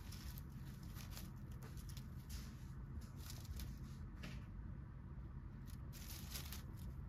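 Grass and dry leaves rustling and crackling in irregular short bursts as a cat rolls and kicks at a toy mouse, over a steady low rumble.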